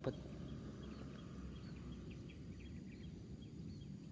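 Outdoor ambience: a steady low rumble with small birds chirping in short, high notes, repeated every half second or so.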